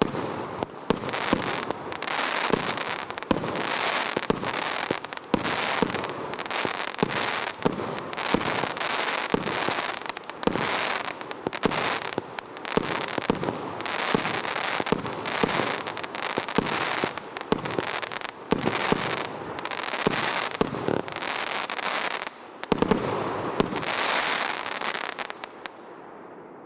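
Consumer firework battery (cake) firing a rapid, continuous barrage of shots: many sharp bangs over a dense, noisy wash of bursts. There is a brief lull about 22 seconds in, then more shots, and the noise dies away near the end.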